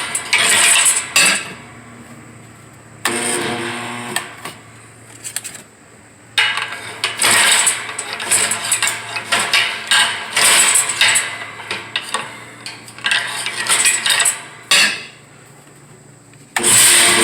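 Kobalt two-stage electric air compressor (built by Campbell Hausfeld) struggling to start: the motor hums and the pump labours in several loud, rough spells, but it never comes up to speed. It is a hard-starting compressor whose motor cannot turn the pump over even with a newly replaced valve.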